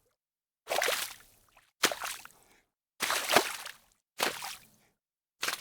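Footsteps wading through shallow water: five splashing steps about a second apart, each sloshing and dying away, with silence between them.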